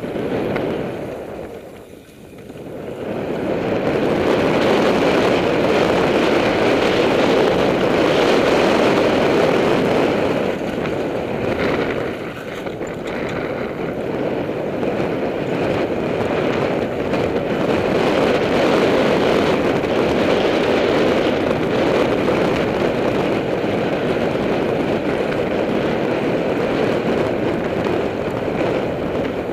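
Steady rushing noise of a mountain bike riding fast down a dry dirt trail: tyres on loose dirt and rattle from the bike, mixed with wind on the camera microphone. It dips briefly about two seconds in, then holds steady.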